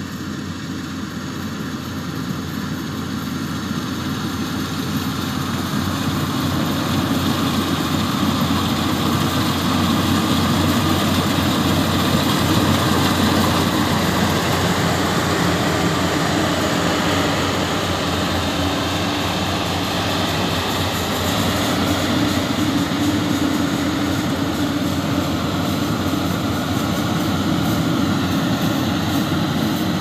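Yanmar YH850 rice combine harvester running in the field as it cuts and threshes, a steady diesel engine drone mixed with machinery noise. It grows louder over the first several seconds, then holds steady.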